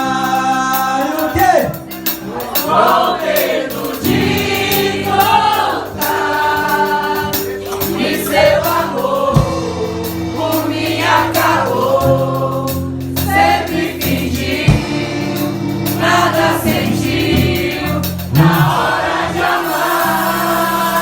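Crowd singing a romantic song in chorus over live band accompaniment with steady held chords.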